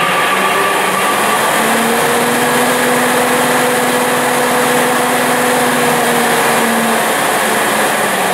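Duall NH50 20 hp belt-driven centrifugal exhaust blower running at full speed under test: a loud, steady rush of air with a mechanical hum. Faint humming tones rise out of it about two seconds in and fade again near the end.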